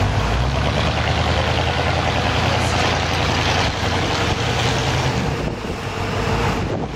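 A 1950s Ford Fairlane riding along a city street: a steady low engine drone under a broad rush of road and wind noise.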